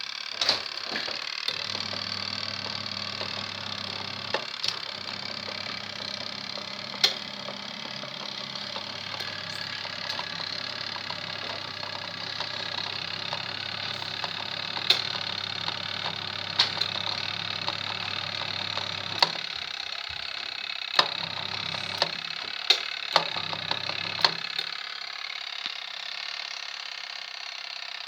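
Mini washing machine running: a steady electric-motor hum over a noisy wash, with sharp knocks every few seconds. Near the end the motor cuts out and restarts several times.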